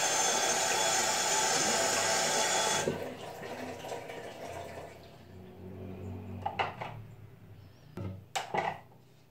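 Running water, a loud steady rush that stops about three seconds in, followed by quieter handling sounds and a few light knocks near the end.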